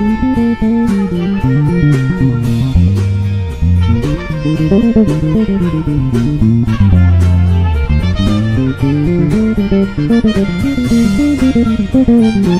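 Electric bass playing a fast melodic solo, runs of notes climbing and falling, over a recorded band backing track.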